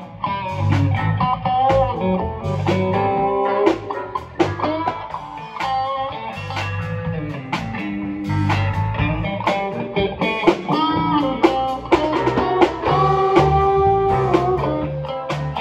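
Live electric guitar lead on a Stratocaster-style guitar: single-note melodic lines, some notes held and bent, over a bass guitar playing steady low notes.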